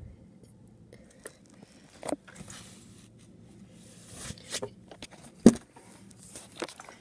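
Handling noise: irregular scrapes, rubs and taps of fingers and the phone body against the microphone, with one sharp knock about five and a half seconds in.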